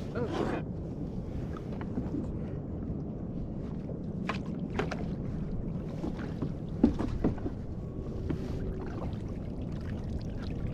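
Steady wind and water noise around a kayak at sea, with a few scattered knocks and clicks from gear being handled, the sharpest about seven seconds in.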